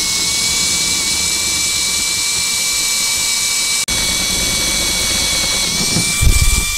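Power drill running at a steady high whine as a twist bit cuts through the van's sheet-metal roof. The whine drops out for an instant just before the middle, a low rumble comes in near the end, and the drill stops abruptly.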